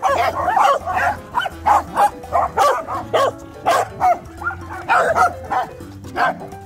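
A pack of dogs, mostly Pembroke Welsh corgis, barking and yipping with short, overlapping yaps several times a second.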